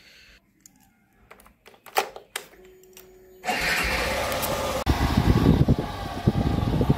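A few clicks of the ignition key and switches on a Hero motorcycle, then about three and a half seconds in its engine starts and runs, going on into riding with wind rushing over the microphone.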